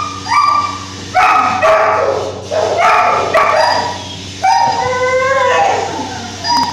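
Dog yipping and whining in a run of short, high-pitched cries, one after another.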